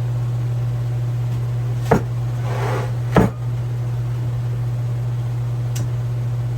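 Parts of a disassembled hydraulic floor jack being handled on a bench: two sharp knocks, about two and three seconds in, with a short scrape between them and a faint click near the end. A steady low hum runs underneath.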